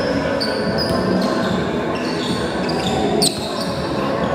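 A volleyball rally on an indoor court: sneakers squeak against the floor again and again in short, high chirps. A single sharp smack of the ball comes a little after three seconds. Behind it all is a steady background of voices in the hall.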